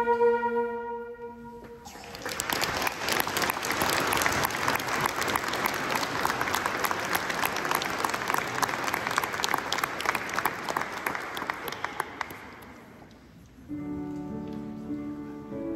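A transverse-flute orchestra's held final chord dies away. An audience then applauds for about eleven seconds, and the applause fades out. New music from the ensemble begins with sustained notes near the end.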